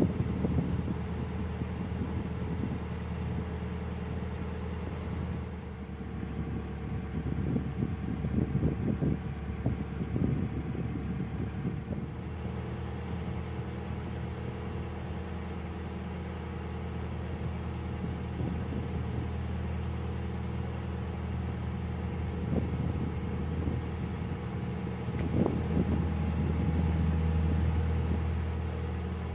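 Narrowboat's diesel engine running steadily under way, getting a little louder near the end, with wind buffeting the microphone at times.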